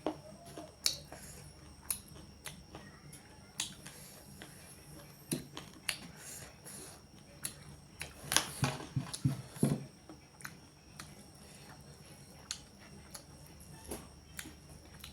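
Close-up eating sounds: wet mouth clicks and smacks while chewing curry and chicken, coming irregularly, with a quicker run of louder smacks about eight to ten seconds in.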